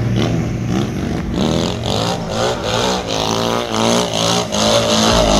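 A vehicle engine revving, its pitch rising and falling again and again, with short regular knocks through it.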